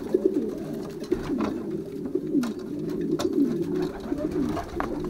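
Racing pigeons cooing in their loft, many overlapping coos throughout, with a few light clicks among them.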